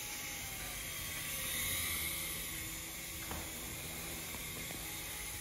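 Small toy RC helicopter with stacked twin rotors flying: its little electric motors give a steady high whine and the rotors whir. It swells louder about a second and a half in, then settles.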